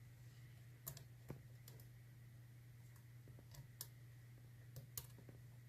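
Faint, scattered metallic clicks and ticks of a hook pick and tension wrench working the sliders inside a Yale Platinum TS-007 dimple euro cylinder, over a faint steady low hum.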